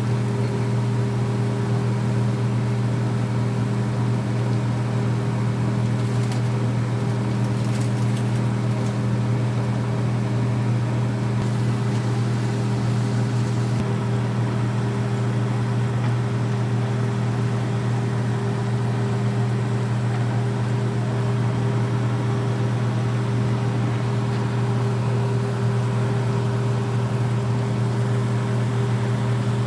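Steady machine hum with a low drone that holds one pitch throughout, like a motor or fan running.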